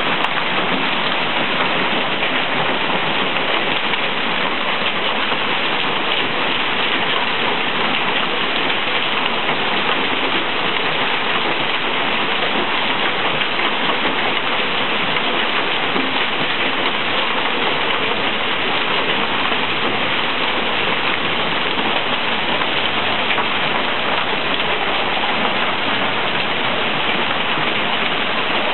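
Hailstorm with rain: hailstones and rain falling on pavement and parked cars, a dense, steady hiss.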